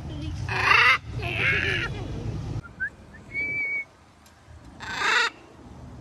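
Blue-and-gold macaw squawking: two loud, harsh calls in the first two seconds and a shorter one near the end.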